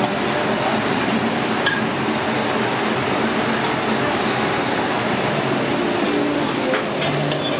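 Steady roar of a commercial gas rotisserie broiler's open burners and kitchen exhaust, with a few faint clicks.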